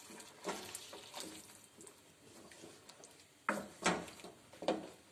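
Wooden spatula stirring chicken and yogurt in a steel karahi: soft, faint stirring at first, then a few sharp knocks and scrapes of the spatula against the pan near the end.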